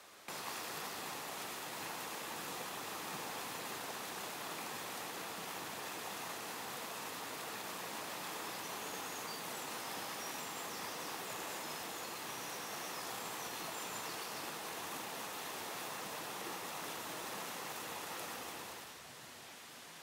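Steady rushing of a mountain stream's flowing water. It cuts in suddenly just after the start and eases off near the end.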